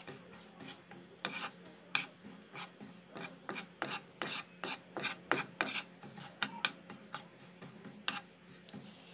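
Wooden spatula scraping and stirring sesame seeds across a nonstick frying pan, a quick irregular series of short scrapes, a few each second, as the seeds dry-toast over low to medium heat.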